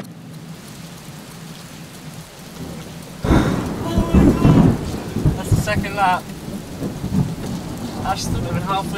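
A thunderclap breaks suddenly about three seconds in and rumbles on for several seconds, over steady rain on the car, heard from inside the cabin.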